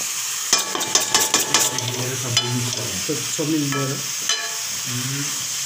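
Chicken pieces and onions sizzling in a wok on a gas burner while a metal ladle stirs them. The ladle scrapes and clanks against the pan in a quick run of ringing strikes about half a second to two seconds in, then twice more, once near the middle and once later.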